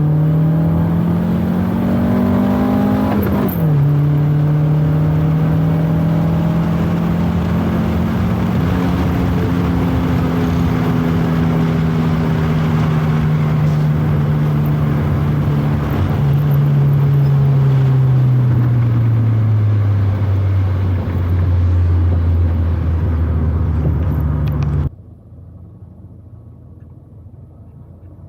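Proton Wira 1.5's four-cylinder engine pulling in a manual car. The revs climb, drop sharply at an upshift about three seconds in, hold, then fall off slowly as the car slows. The engine sound cuts off abruptly a few seconds before the end, leaving only a faint low rumble.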